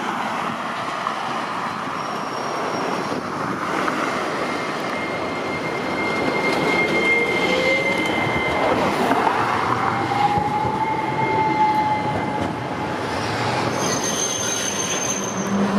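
Hiroshima Electric Railway streetcars rolling past close by: running noise on the rails with a long high steady wheel squeal. About seven seconds in, a rising electric whine comes in as a tram's motors pull it up to speed, then levels off.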